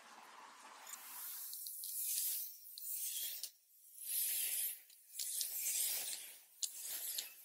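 Rustling of eucalyptus cuttings' leaves and stems as hands handle and adjust them in a plug tray, in several short bursts of about a second each, with a few sharp ticks among them.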